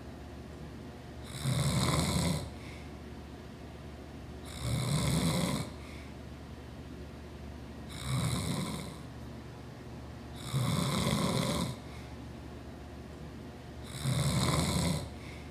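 A sleeping man snoring loudly: five snores in a regular rhythm, about one every three to four seconds, each lasting about a second.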